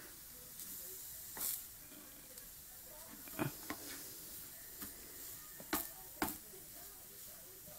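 Chicken mince frying faintly in a non-stick frying pan, with a plastic spatula scraping and knocking against the pan about five times as the mince is stirred.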